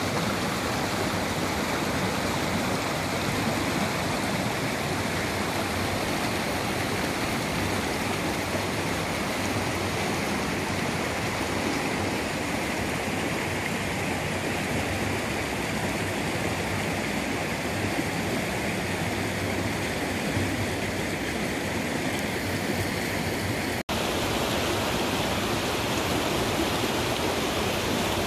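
Shallow rocky stream rushing and splashing over small cascades between boulders, a steady, even rush of water. It cuts out for an instant near the end, then carries on the same.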